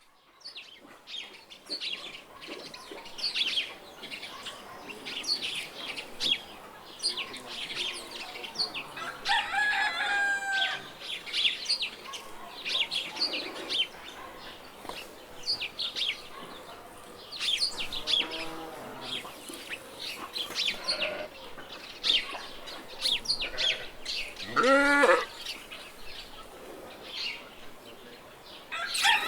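Farmyard ambience: small birds chirping throughout, with hens clucking and a rooster crowing about ten seconds in and again, louder, at about 25 seconds in.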